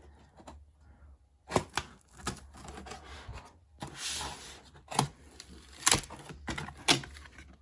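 Cardboard and paper packaging of a HomePod box being torn and opened by hand: rustling and tearing, with several sharp taps and knocks as the box is handled.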